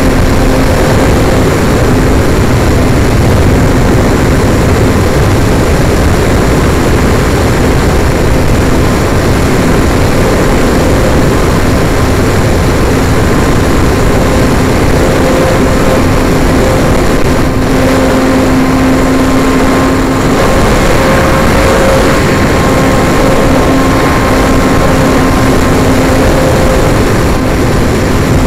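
RC airplane's motor and propeller running steadily in flight, heard from an onboard camera with loud wind rush over the microphone and a faint, steady whine underneath.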